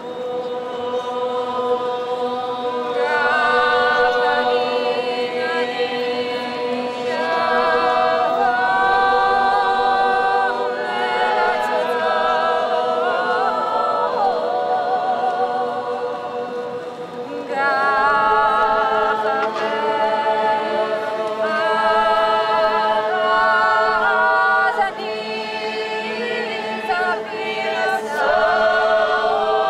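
A group of voices singing a traditional Georgian song unaccompanied, in several parts: a low held drone under moving upper melody lines with vibrato. A new phrase starts about eighteen seconds in.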